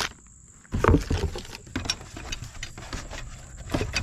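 Rummaging noise from a backup-camera kit's foam-lined box: rustling and light knocks of parts being moved around inside, with a louder bump about a second in.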